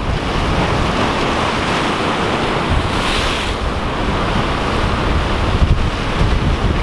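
Heavy surf crashing and washing over the rocks of a jetty, with wind buffeting the microphone. The hiss of the water surges louder about three seconds in.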